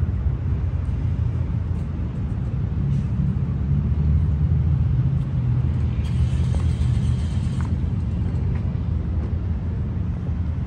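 Low, steady rumble of a car idling, with a brief hiss about six seconds in.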